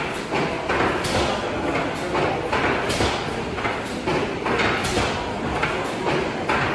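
Steam mill engine running at a slow, even pace, with a regular beat of heavy strokes about once a second over a steady mechanical noise.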